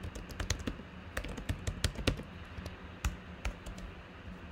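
Typing on a computer keyboard: a quick, irregular run of key clicks for about two seconds, then a few scattered clicks.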